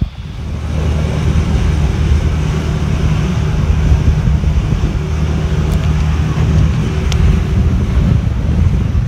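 Outboard motor running at a steady speed, a low even hum, with wind on the microphone and water rushing past the hull as the boat motors along.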